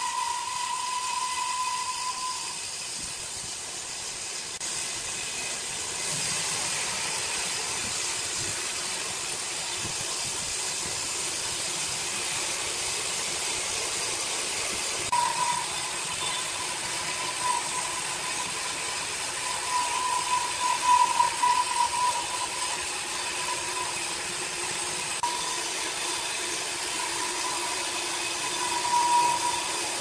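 Industrial horizontal band sawmill running, its band blade cutting a squared red log: a steady machine hiss and hum with a whining tone. The whine fades soon after the start, comes back about halfway through and swells around two-thirds of the way in and again near the end.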